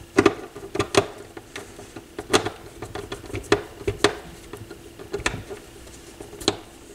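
Irregular small clicks, taps and knocks of metal parts and a screwdriver being handled against a turntable's metal chassis as a part is fitted back in place.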